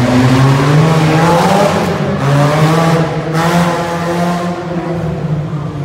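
Mini monster truck's engine revving as it drives, its pitch climbing twice with a sudden drop between, then running lower and steadier near the end.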